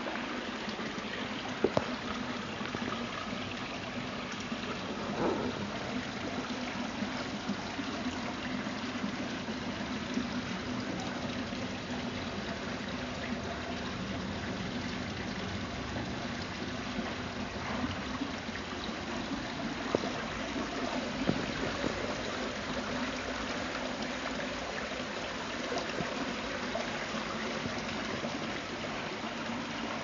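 Water from an artificial rock waterfall spilling into a shallow pool: a steady trickling splash, with a few brief clicks.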